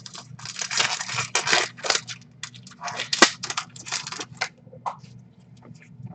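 Trading cards and pack wrappers being handled: bursts of rustling and crinkling in two spells, with a sharp click about three seconds in.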